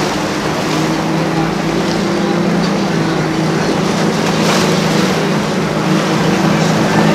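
Outboard engines of a center-console fishing boat running at speed, a steady drone over the rush of water from the hull and wake.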